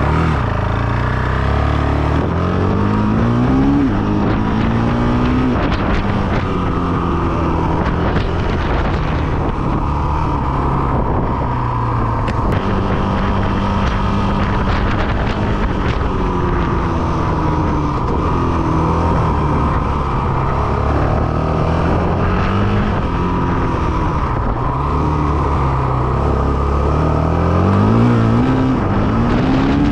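Honda CRF450RL's 450 cc single-cylinder four-stroke engine running under way, rising in pitch as it accelerates through the gears about two to four seconds in and again near the end, with steadier cruising between.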